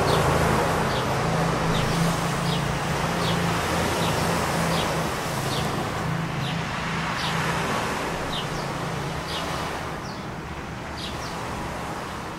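A Rio Yachts Daytona 50 motor yacht's engines run with a low drone and a rush of water, slowly fading. A small bird chirps repeatedly throughout, each chirp short and falling in pitch.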